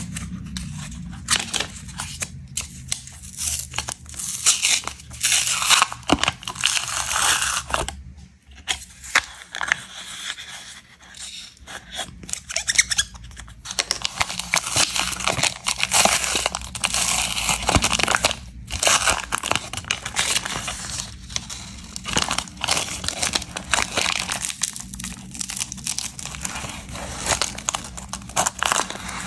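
Hands tearing and crinkling a candy's paper wrapper, peeling it off a chocolate-filled wafer cone: a dense, crackly rustle full of small sharp tears. There are brief lulls about eight and eleven seconds in.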